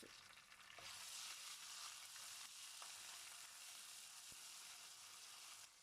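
Ginger and garlic paste frying in hot oil in a karahi: a faint, steady sizzle that swells about a second in, with a few light clicks.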